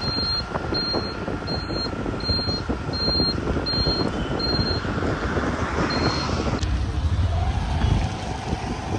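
A high electronic beep repeating evenly about once every 0.7 seconds over a steady rumble of engine and traffic-like noise. The beeps stop about halfway through, and the rumble continues.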